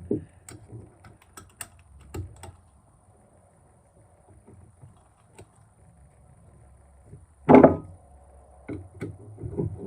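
Hand-assembly noises of an air horn's cover and fittings being put back together: scattered small clicks and knocks, a quiet stretch, one loud short knock about seven and a half seconds in, then a few more knocks near the end.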